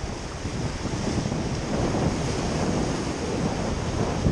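Ocean surf washing and breaking against jetty rocks, a steady rushing wash, with wind buffeting the microphone.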